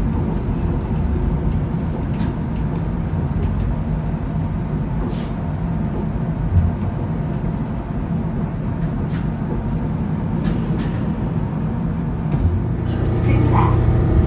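Steady low rumble inside a Chiba Urban Monorail car, with scattered light clicks; near the end a deeper hum comes up and grows louder.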